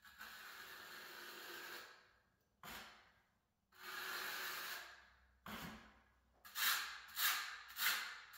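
Notched steel trowel scraping thinset mortar across a concrete slab: a few long, even strokes, then several shorter, louder strokes in quick succession, about two a second, near the end.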